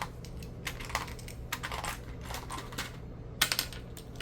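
Small plastic Lego pieces clicking and clattering as they are handled and snapped together, in a run of irregular light clicks with a sharper clack near the end.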